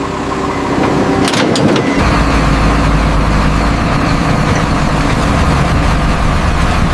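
Heavy crane engine running steadily. A couple of sharp clicks come about a second and a half in, and a deep low rumble builds in about two seconds in.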